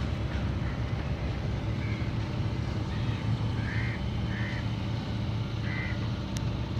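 Small backwater tour boat's engine chugging steadily under way, a continuous low hum. A few short high calls sound now and then over it.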